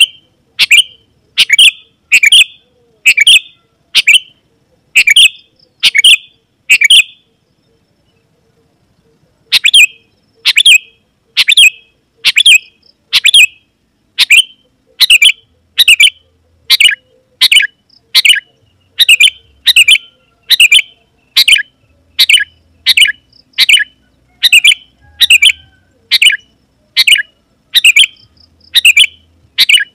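Sooty-headed bulbul (kutilang) calling loudly and energetically in short, sharp notes, about one and a half a second. The calls pause for about two seconds about seven seconds in, then carry on at the same pace.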